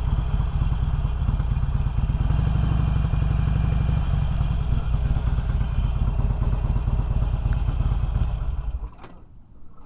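Harley-Davidson Iron 883's air-cooled V-twin running at low speed with a steady low sound as the bike rolls into a parking spot. It is switched off nearly nine seconds in, and the engine sound cuts out.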